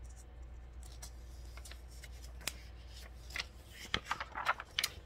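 Paper rustling and soft clicks from the pages of a picture book being handled, busiest in the last second or so, over a faint steady low hum.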